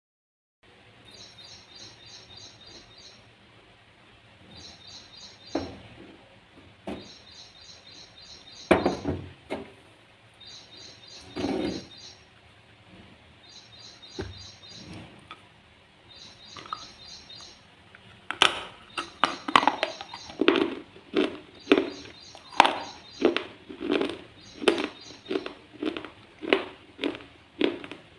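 Slate being bitten and chewed: a few single crisp snaps in the first half, then a steady rhythm of loud chewing crunches from about eighteen seconds in. A bird chirps in short repeated trills in the background throughout.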